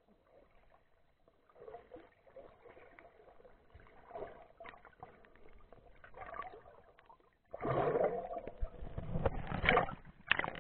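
Muffled water sound through an action camera's waterproof housing: faint gurgles and small clicks, then, about seven and a half seconds in, loud sloshing and splashing as the camera breaks the surface among waves.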